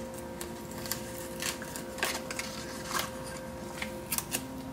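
Paper sticker sheet being handled and laid on a planner page: light paper rustles with a few short clicks and taps, over a faint steady hum.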